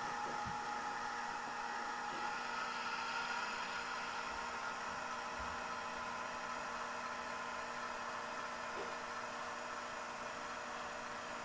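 Simulated diesel switcher engine sound from an MRC 1662 sound decoder, played through a small speaker in a model boxcar: a steady hum of several tones that shifts slightly about two seconds in.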